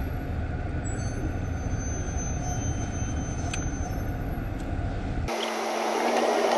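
Steady low rumble of a car's engine and tyres heard inside the moving car's cabin. It cuts off abruptly about five seconds in, replaced by a steady hiss with a low hum.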